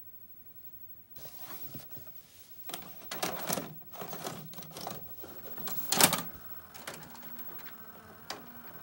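A VHS cassette is handled and pushed into the front slot of a Panasonic PV-M1323 TV/VCR combo, and the deck's loading mechanism clicks, clunks and whirs as it takes in and threads the tape. The loudest clunk comes about six seconds in. From about seven seconds in, the transport settles into a steady whirr as it starts playing.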